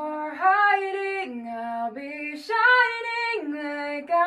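A woman singing a cappella, holding long notes that step up and down in pitch, with a quick breath taken about two and a half seconds in.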